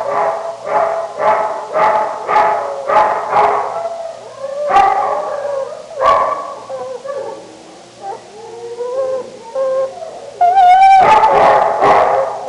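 A dog yelping in a quick run of short, pitched cries, about two a second, then two louder cries and a stretch of softer, wavering whines. Near the end it breaks into a loud, wavering howl.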